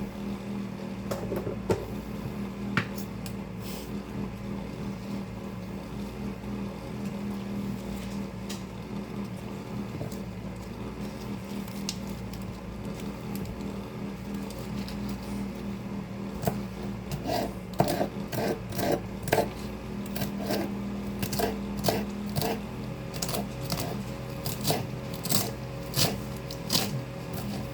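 Greens being chopped: a few scattered cuts at first, then from a little past halfway a steady run of sharp chopping strikes, about two a second. An electric fan hums steadily underneath.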